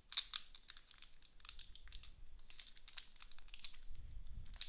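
Foil Pokémon booster pack wrapper crinkling and crackling in the hands as it is worked at and pulled to tear it open: a steady run of irregular, sharp crackles.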